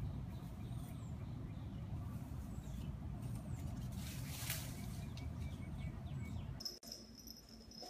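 Outdoor background noise: a steady low rumble with faint, scattered bird chirps, and a brief hiss of noise about four seconds in. Near the end the rumble cuts off and a steady high tone starts.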